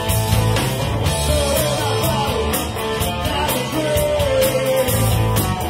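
Rock band playing live: drums with steady cymbal strokes, bass and guitars. A high lead line bends and wavers over the top from about a second in until near the end.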